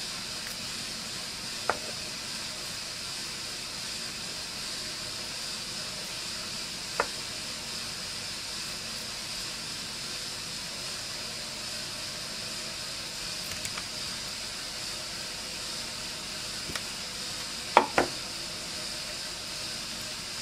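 A knife slicing banana rounds into a non-stick frying pan: a few light clicks as the blade or slices touch the pan, the loudest a quick double click near the end, over a steady faint hiss.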